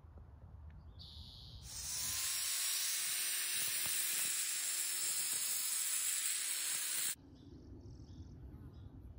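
4½-inch angle grinder with a Norton diamond blade cutting through a concrete paver cap: a steady, bright grinding noise that starts about two seconds in and cuts off abruptly about seven seconds in.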